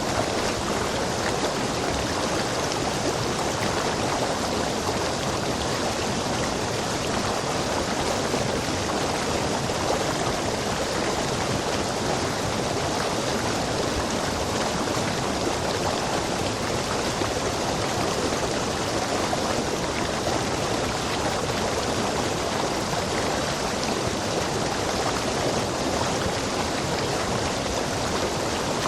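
Stream water rushing steadily over rocks, a constant even rush with no breaks.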